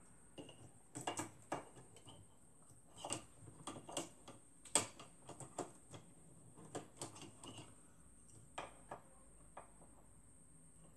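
Scattered small clicks and taps of thick wires being pressed into the plastic cable channel of a Xerox 3370 fuser unit; they are busiest in the first eight seconds and thin out after.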